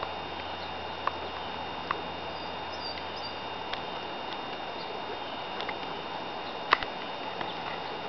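Steady outdoor hiss with a few scattered sharp ticks, the loudest a click near seven seconds in, and faint high chirps of small birds around three seconds in.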